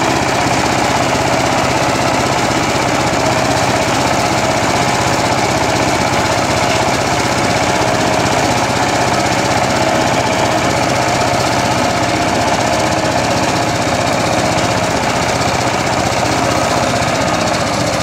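Small farm tractor's engine running steadily under load while driving a tractor-mounted straw pick-up baler, a loud continuous mechanical chugging.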